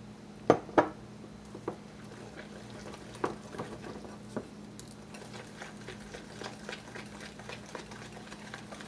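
Wire whisk stirring pancake batter in a glass bowl, its wires clicking against the glass: two loud knocks about half a second in, then a run of quick light ticks from about three seconds on.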